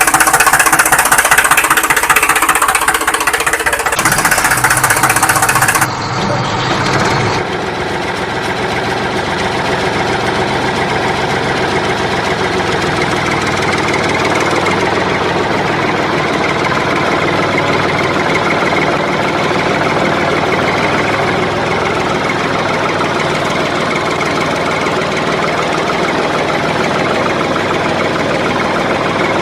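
An engine running steadily; its sound changes about four to six seconds in and then holds even.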